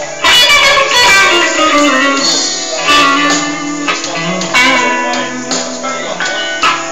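Electric guitar improvising blues lines, single-note runs broken by a few strummed chords.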